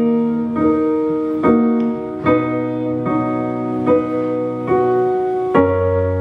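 Electric keyboard playing sustained piano chords, a new chord struck about every second, with low bass notes underneath.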